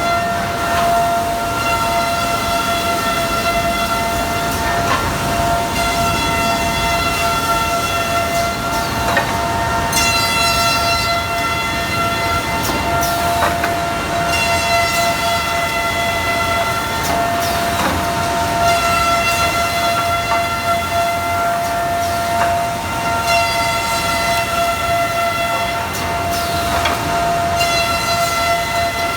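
Eight-spindle four-sided wood moulder running at high speed: a steady high whine from its spinning cutterheads over a mechanical rush. Several times the whine grows brighter and harsher for a few seconds, as timber is fed through and cut.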